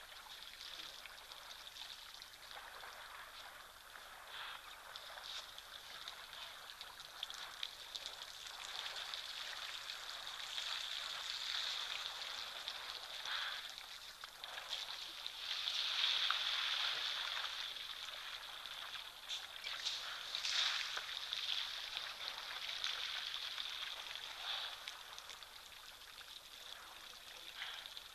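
Outdoor bush ambience: a steady high-pitched hiss with a constant high tone running through it, swelling louder about halfway through, with a few brief sharper calls.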